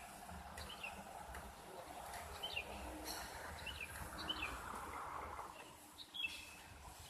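A few short bird chirps over faint steady background noise.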